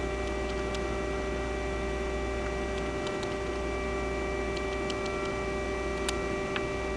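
Spindle of a Mori Seiki NH4000 DCG horizontal machining center running at a steady speed: an even whine over a low machine hum, with a few faint ticks.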